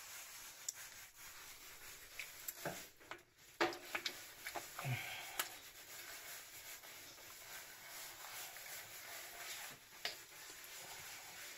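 Knife cutting raw tuna on a concrete washboard: faint scraping, with scattered clicks and knocks, the loudest about three and a half seconds in.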